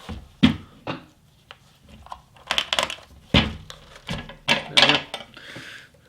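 Scissors snipping through elastic meat netting: a run of sharp, irregular clicks, with a short rustle near the end.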